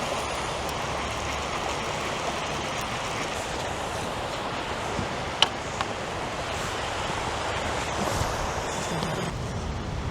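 Steady wash of sea surf on the beach, with two sharp clicks about halfway through and a low rumble coming in near the end.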